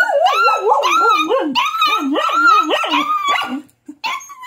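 Two-month-old aspin puppy crying in a long, high-pitched, wavering howl that rises and falls repeatedly, then a short cry near the end, in distress and fear as its bite wounds are being treated.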